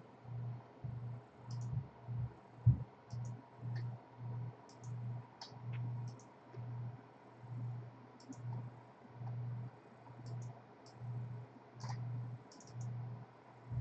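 Scattered computer mouse clicks over a low hum that pulses on and off at a steady rhythm, about three times every two seconds, with one sharper knock a few seconds in.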